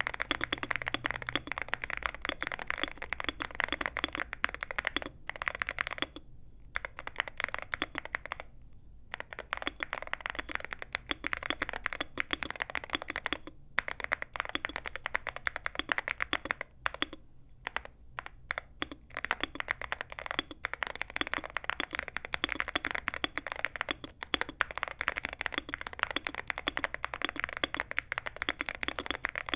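Steady typing on a modified aluminium Drop CTRL High Profile keyboard fitted with Moondrop Tessence tactile switches and MT3 keycaps: a dense run of high-pitched key clacks with a few brief pauses.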